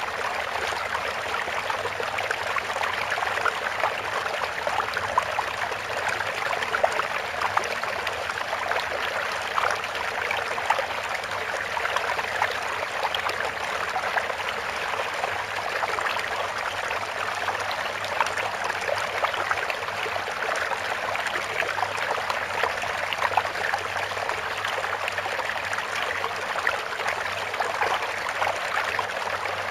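Steady running water, like a small babbling stream: an even, unbroken trickle and rush with fine splashy detail.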